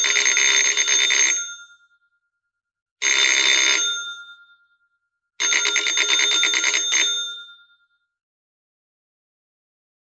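Electric bell ringing in three bursts of rapid clapper strikes, each about a second or a second and a half long and dying away with a short ringing tail.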